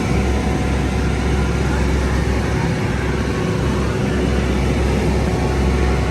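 A tour boat's engine running steadily under way, a constant low drone mixed with noise.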